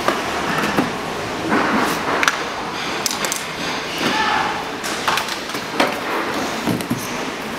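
Hard plastic body of a children's electric ride-on dune buggy knocking and scraping on a hard stone floor as it is handled and tipped onto its side, with several sharp knocks spread through.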